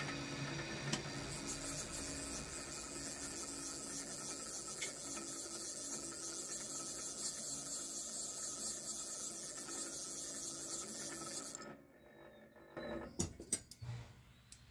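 The milling spindle of a 1998 Shoptask XMTC lathe-mill combo runs steadily, turning a boring head that is boring out an aluminium part. The running sound stops abruptly about twelve seconds in, and a few sharp clicks follow near the end.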